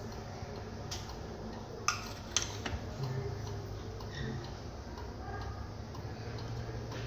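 Receiver of an old Kellogg wall telephone being handled and hung on its hook: a few sharp clicks and knocks about two seconds in, over a steady low hum.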